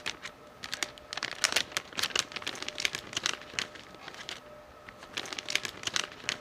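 Anti-static bag crinkling as RAM sticks are pulled out of it: irregular runs of short crackles, with a lull about four seconds in.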